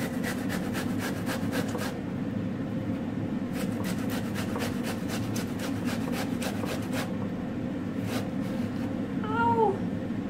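Pear being grated on a stainless steel box grater: rasping strokes about two to three a second, in runs with short pauses. Near the end there is a short voice-like sound.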